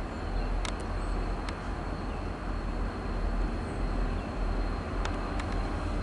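Low, steady rumble of a distant G-class diesel locomotive hauling a goods train as it approaches, with a few faint clicks.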